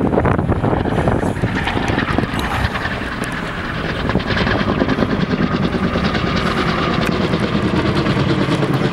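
Firefighting helicopter flying overhead, its rotor blades chopping steadily, growing a little louder from about four seconds in as it comes closer.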